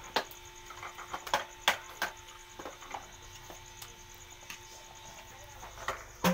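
Scattered sharp clicks and knocks of small plastic toy cars and trains being picked up and set down on a concrete table. Most come in the first three seconds, with a louder knock near the end, over a faint steady hum.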